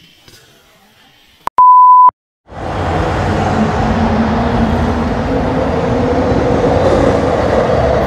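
A single short electronic beep, one steady pure tone about half a second long, about a second and a half in. About a second later, the loud, steady rumble of a passing train starts and keeps going.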